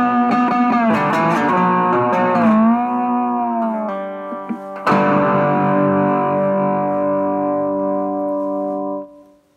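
Three-string electric canjo, a coffee-can-bodied fretted instrument, played through an amplifier: notes bent up and down in pitch, then a chord struck about five seconds in that rings on steadily and cuts off near the end.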